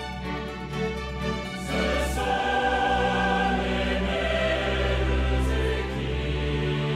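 Music with a choir-like sung sound, held tones over a steady low bass, turning fuller and louder about two seconds in.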